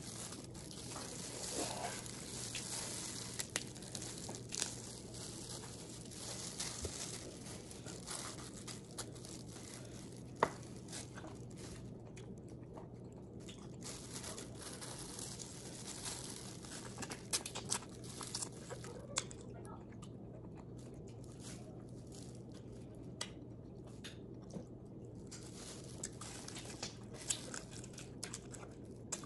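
Close-miked eating of a seafood boil: irregular small clicks and crackles of food being handled, bitten and chewed, over a steady low hum.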